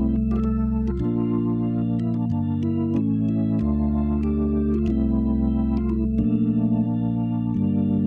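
Hammond XK-5 drawbar organ being played: sustained chords change about once a second over low bass notes, each new chord starting with a short key click.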